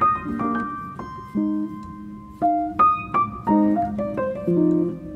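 Background piano music: single melody notes struck over lower chords, each note ringing and fading.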